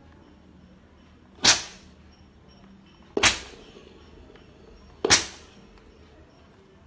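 Morphy Richards Super Glide 2000-watt steam iron firing three shots of steam, each a sudden hiss that fades over about half a second, roughly two seconds apart.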